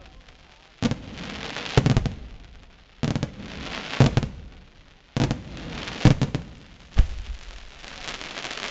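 Aerial firework shells bursting in quick succession, a sharp bang about once a second, each followed by the crackle and hiss of burning stars.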